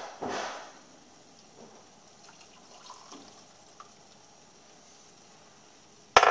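Water poured from a glass measuring cup into a ceramic mug, splashing in surges for the first moment, then low and quiet. Near the end comes a sharp knock, the loudest sound.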